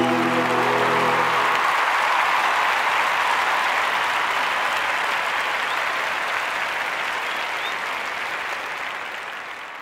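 Audience applauding at the end of a sung song, with the last held note of the singing and accompaniment dying away in the first second and a half. The applause then fades out slowly toward the end.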